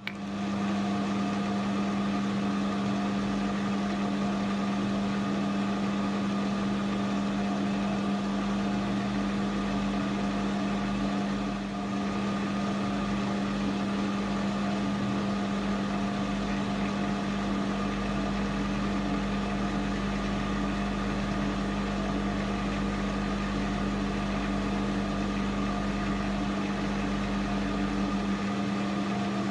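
AL960B metal lathe running steadily, its motor and gearing giving a constant hum; it starts up abruptly and shuts off about half a minute later.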